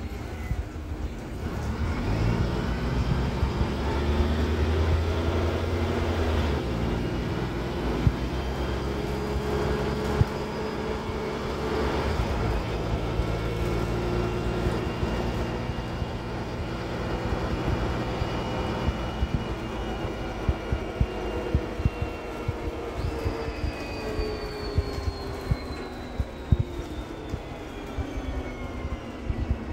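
Inside a Renault R312 diesel city bus under way: the engine pulls away from about a second in and changes gear about seven seconds in. It then runs on with a rising drivetrain whine that falls away over the last several seconds as the bus slows. Loose interior fittings click and rattle throughout.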